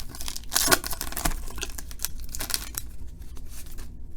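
Foil trading-card pack wrapper crinkling and tearing, with cards rustling as they are handled: a string of short scratchy rustles for about three seconds, then quieter.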